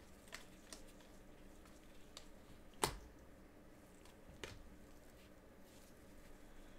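Faint clicks and slides of glossy Mosaic basketball cards being flipped through a stack by gloved hands, with a sharper click about three seconds in.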